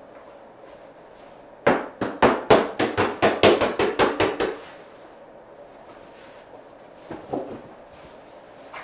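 A rapid series of about fifteen sharp knocks, about five a second for roughly three seconds, then two softer knocks near the end.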